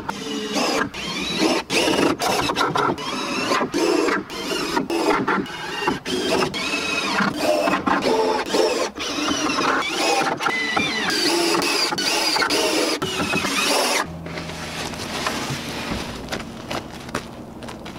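Cordless drill driving screws into a wooden frame in many short runs, its motor whine rising and falling with each screw. About 14 s in this stops and gives way to a quieter, steady low hum.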